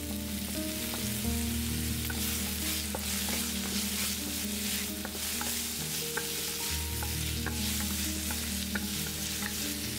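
Pork strips and julienned bamboo shoots sizzling in a hot wok, stirred and tossed with a wooden spatula, with small scrapes and clicks against the pan. Soft background music with sustained notes plays under it.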